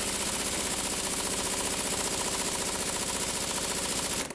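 Craftsman half-inch pneumatic impact wrench hammering rapidly and steadily on a Honda J-series V6 crankshaft pulley bolt through a standard 19 mm socket. It stops abruptly near the end, and the bolt has not broken loose.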